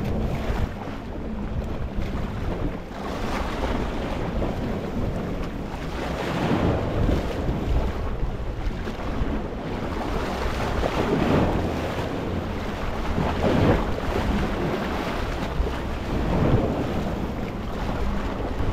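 Small sea waves washing over a rocky shore: a steady rush of surf that swells about five times, every few seconds, over a low rumble.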